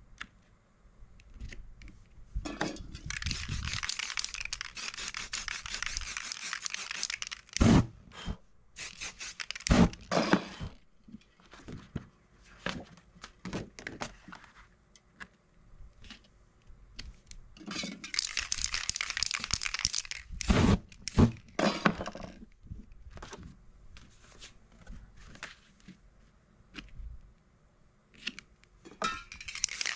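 Aerosol spray paint can hissing in long bursts: one of about five seconds, one of about three seconds, and one starting near the end. Between the bursts, paper stencils rustle and there are several sharp knocks.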